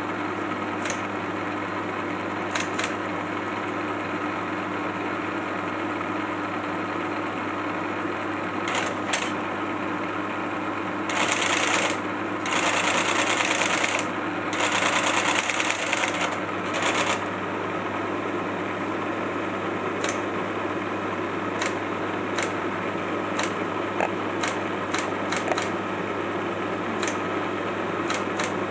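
LGP-30 vacuum-tube computer running with a steady hum and scattered sharp clicks. From about eleven to seventeen seconds in come several bursts of rapid mechanical chattering from its Flexowriter typewriter terminal, as the machine computes.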